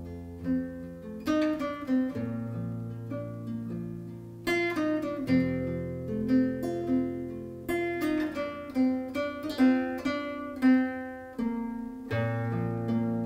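Solo classical guitar played fingerstyle: plucked melody notes ringing over sustained bass notes, the bass changing a few times.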